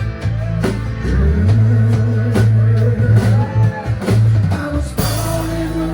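Live rock band playing an instrumental passage between sung lines: drum kit hits over held bass notes, with guitar.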